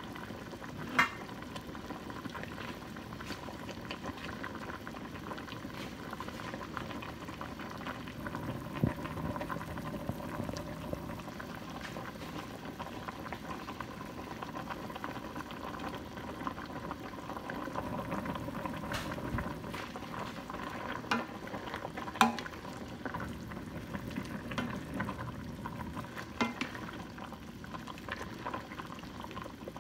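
Bak kut teh broth boiling in a large stainless steel stockpot, a steady bubbling, with a few sharp knocks against the pot; near the end a plastic ladle stirs through the soup.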